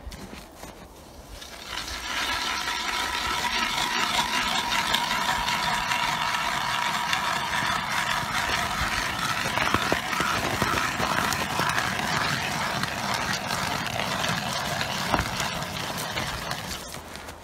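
Hand ice auger being cranked round, its spiral blades cutting through lake ice with a steady rasping scrape. The scrape starts about two seconds in and fades out shortly before the end.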